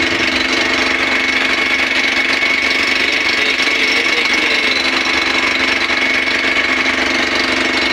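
Passenger motorboat's engine running steadily under way, with an even, unchanging drone.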